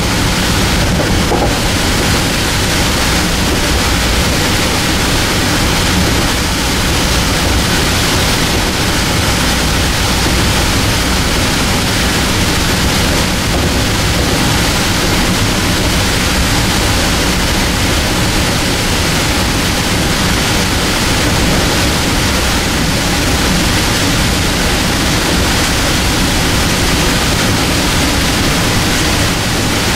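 Steady noise of a Metro-North M2 electric multiple-unit train running along the line, heard from on board: wheel-on-rail rumble and hiss, unbroken throughout.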